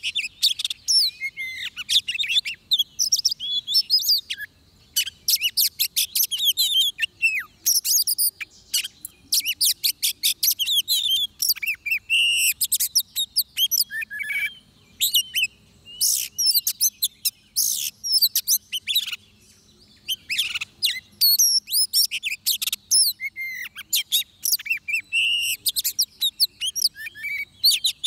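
Oriental magpie-robin singing a long, varied song of rapid whistles, trills and chirps, broken by a couple of brief pauses.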